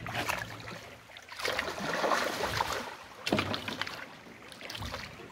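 Water splashing and churning as a hooked fish fights at the surface, in swells that peak about a second and a half in and again a little after the three-second mark.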